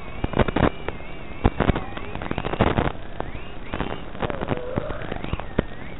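FPV racing quadcopter's motors and propellers whining under hard throttle, the pitch wavering up and down with throttle changes, amid a steady crackle of sharp pops and static.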